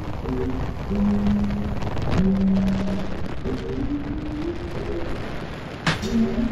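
Boat running at speed over open water, a steady rushing of wind and water noise, with background music's held, stepping notes over it.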